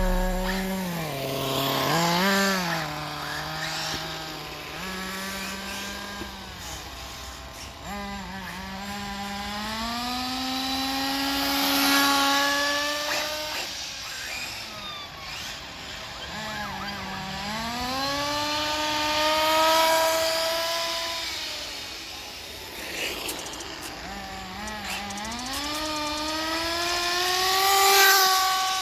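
Radio-controlled car motor running laps, its whine climbing in pitch as the car accelerates and dropping as it slows, growing louder as the car passes close several times.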